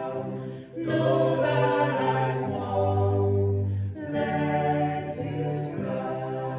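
Vocal trio of two women and a man singing held notes in close harmony. The man's voice settles on a long low note in the middle, and there are short breaks between phrases about a second in and again around four seconds.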